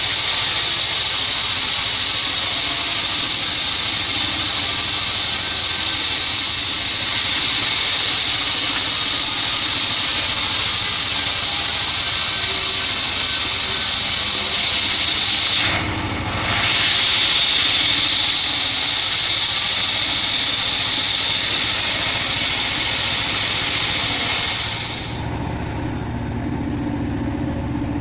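Engine-driven homemade band sawmill cutting a weru log: a steady high-pitched whine from the blade in the wood over the engine running. The cutting sound breaks off briefly about halfway through and stops a few seconds before the end, leaving the engine running on its own.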